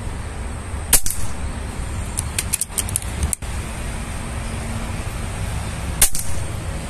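Two shots from a PCP air rifle firing slugs, sharp cracks about a second in and again about six seconds in, with a few lighter clicks between them, over a steady low rumble.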